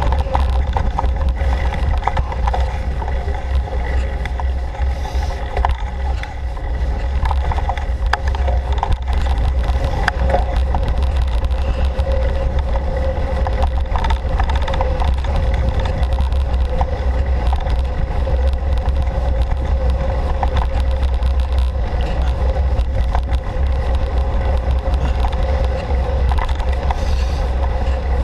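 Riding a forest trail at night, heard from a GoPro mounted on the bike: a continuous heavy low rumble of rolling and wind buffeting, a steady hum, and frequent small clicks and rattles from the bumpy ground.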